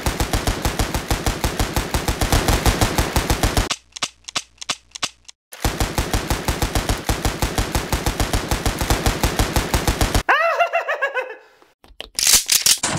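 Rapid automatic gunfire in two long bursts of about four seconds each, with a few single shots in the pause between them. Near the end come a short pitched sound falling in pitch and a loud burst of noise.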